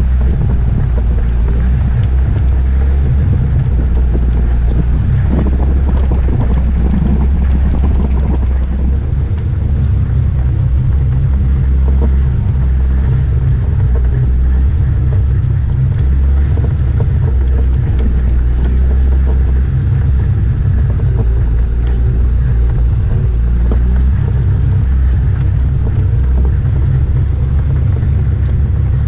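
Off-road vehicle driving slowly along a rough dirt trail: a steady, loud low engine rumble with rough noise from the vehicle jostling over the ground.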